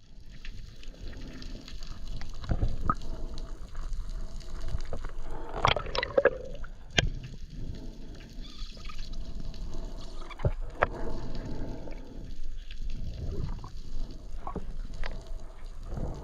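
Seawater sloshing and gurgling around the diver's camera, with several sharp clicks and a brief louder rush of water about six seconds in.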